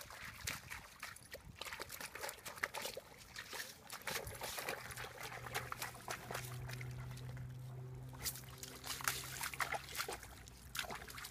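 Water splashing and sloshing in irregular bursts as a dog wallows and paws in a shallow puddle. A steady low hum runs underneath from about four seconds in until about nine and a half seconds.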